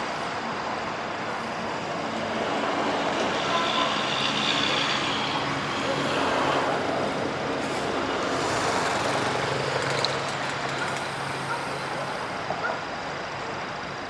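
Road traffic passing: a motor vehicle's engine running with tyre noise, building up over a couple of seconds, holding, then easing off near the end.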